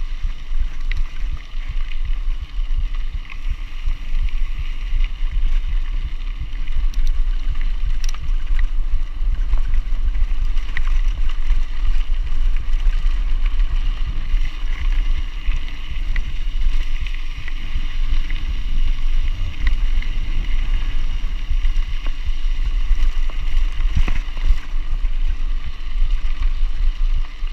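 Mountain bike rolling along a dirt track: a steady low rumble of wind on the microphone and tyres on the gravel, with scattered small rattles.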